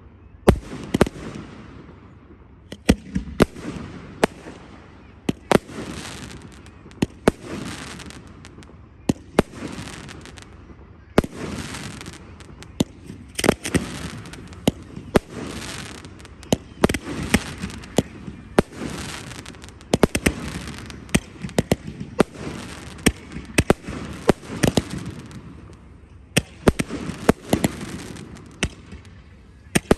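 Fireworks display: a continuous barrage of sharp bangs from bursting shells, often several a second, each trailing off in a fading echo.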